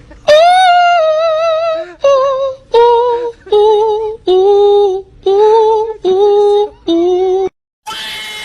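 A high singing voice holds about seven notes with vibrato, one after another with short breaks, stepping down in pitch. It cuts off abruptly near the end, and a rougher, noisier sound begins.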